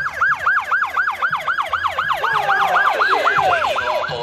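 Police vehicle siren on its fast yelp setting: quick rising-and-falling pitch sweeps repeating about five times a second.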